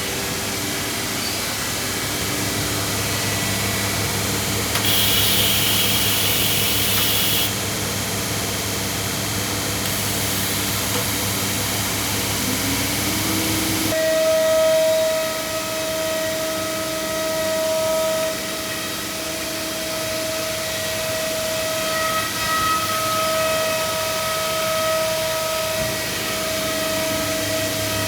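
CNC router running a program: a steady machine hum, a burst of compressed-air hiss a few seconds in, then about halfway through a whine rises in pitch and settles into a steady high tone as the router spindle comes up to speed and runs.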